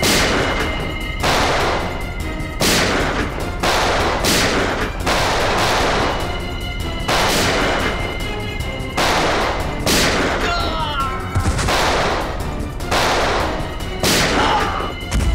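Pistol gunfire in a shootout: single shots about one a second, each ringing out briefly.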